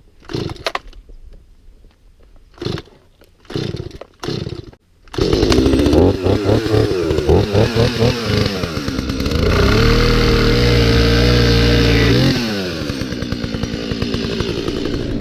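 Two-stroke chainsaw: a few short bursts, then it runs loudly from about five seconds in, revving up and down and held at high speed while cutting through wood, before dropping back a little past twelve seconds.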